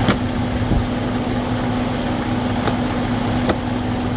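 Volvo XC90 3.2-litre inline-six engine idling steadily with its new PCV valve fitted, the whistle it had before now cured. A few sharp plastic clicks as the engine cover is pressed back onto the engine.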